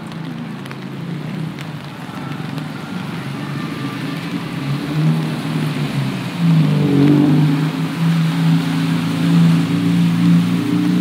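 A motor vehicle's engine running close by, getting louder about halfway through with a brief rise in pitch, over a steady hiss of rain.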